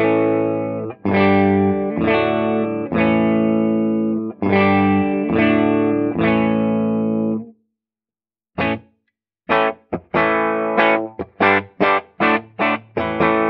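Les Paul-style electric guitar played through a valve guitar amp with a 0.68 µF cathode bypass capacitor on the preamp stage, fixed-bias output and negative feedback on. Several ringing chords are held for about seven seconds, then after a short pause a run of short, choppy chords follows. The small bypass cap cleans up the low end and pushes the upper mids forward, a Marshall-like sound.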